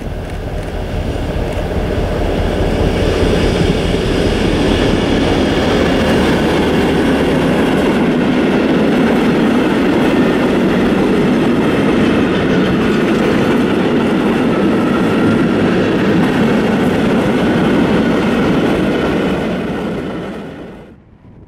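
Nohab MY 105 diesel-electric locomotive, GM-engined, running loudly as it passes close by. A string of heavy freight wagons follows, rolling past with a steady clatter of wheels on the rails. The sound fades out near the end.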